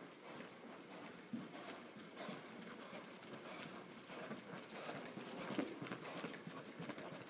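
Arabian horse trotting on loose indoor arena footing: an even rhythm of light hoofbeat clicks, about three a second, growing louder as the horse comes closer.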